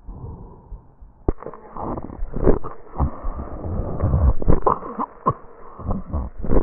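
Tracheal breath sounds from a patient, heard through an electronic stethoscope. The breathing noise is fairly quiet for about the first second, then grows loud in swells, with many sharp crackles in it, the sign of secretions in the airway.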